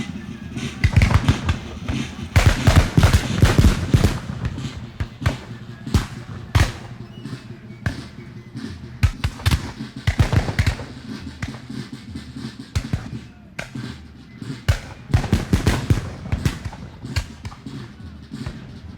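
Battlefield gunfire: rapid bursts of automatic fire mixed with scattered single shots. The densest volleys come about a second in, again around ten seconds, and near fifteen seconds.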